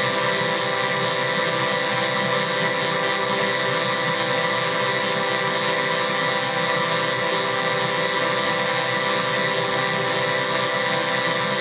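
Synthetic sound effect made with vocoder and voice-changer software: a dense, steady buzzing drone of many held tones over a bright hiss, with no change in level.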